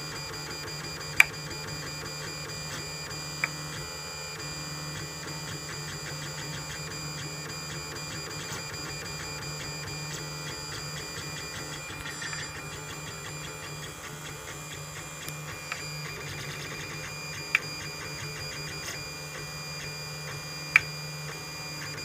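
Lulzbot Mini 3D printer running with a steady hum and a high whine, broken by sharp single clicks at uneven intervals, about six in all. The cause of the clicking is unknown to the owner.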